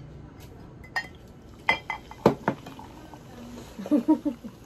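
Glass cola bottle and drinking glasses clinking together: a handful of sharp clinks in the middle. Near the end, cola glugs out of the bottle's neck as it is poured into a glass.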